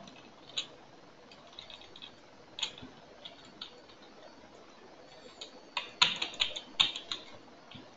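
Computer keyboard typing: scattered single keystrokes, then a quicker run of keys about three-quarters of the way through.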